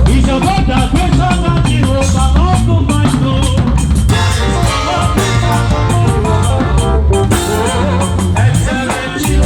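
Drum kit playing fast runs and fills, with snare, rimshots and bass drum, over music carrying a melody and a steady bass line.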